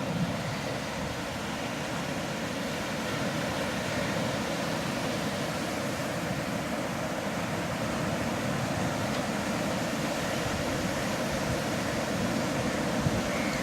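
Sea surf washing steadily onto a beach, a continuous rushing noise that swells gently.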